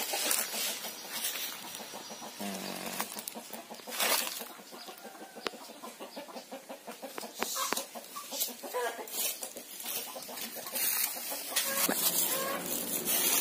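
Chickens clucking, with rustling of foliage and crunching of dry leaf litter underfoot.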